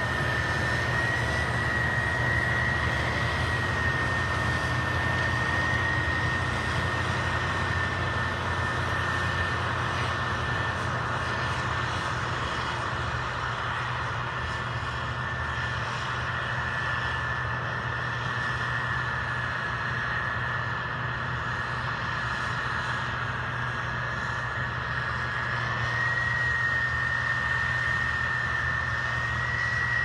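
Combine harvester running steadily while harvesting corn: a continuous mechanical drone with a steady high whine over it.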